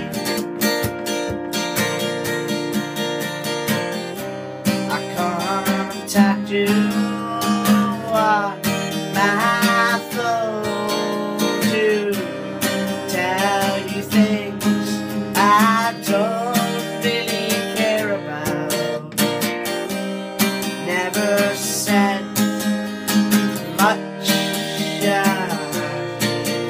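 Acoustic guitar strummed in a steady rhythm of chords, with a man's voice singing a melody over it from about five seconds in and again near the end.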